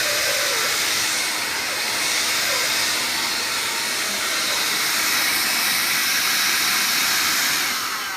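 Vax Air Cordless vacuum cleaner running steadily with a loud airy rush, then switched off near the end, its motor whine falling in pitch as it spins down.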